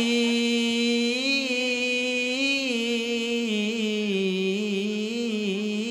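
A young man's solo voice sings a sholawat, a devotional song praising the Prophet, unaccompanied into a microphone. He holds one long note, steady at first, then turns it in small wavering ornaments from about halfway through.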